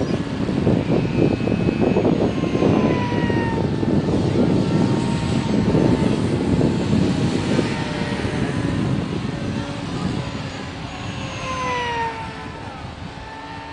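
Several electric RC pylon-racing planes pass at speed, their motors and propellers whining, and the pitch drops as each one goes by. A loud, uneven rushing noise lies underneath and eases toward the end.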